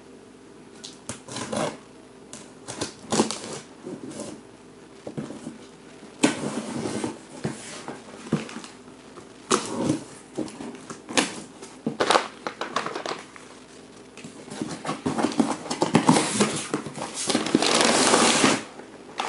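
Unpacking a mystery box by hand: irregular rustling, crinkling and scraping of packaging with scattered knocks and clicks, growing into a longer stretch of dense rustling near the end.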